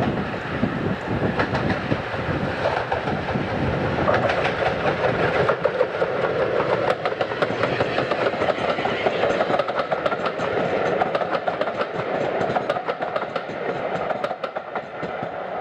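Bulleid West Country class steam locomotive 34092 City of Wells passing close, followed by its coaches rolling by, with the wheels clicking rapidly over the rail joints.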